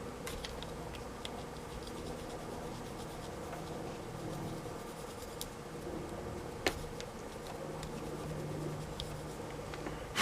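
Small scratching, rubbing and clicking of hand work on a notebook battery pack's plastic and 18650 cells, with one sharp click about six and a half seconds in. A faint steady hum runs underneath.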